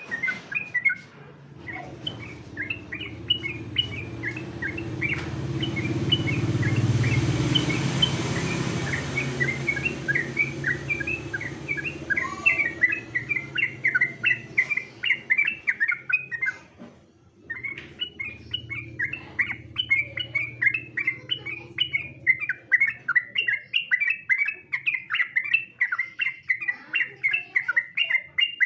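Sooty-headed bulbul (trucukan) singing in fast runs of bright, bubbling chirps, a competition-style song, pausing briefly about two-thirds of the way through. A broad rushing noise swells up in the background and fades in the first half.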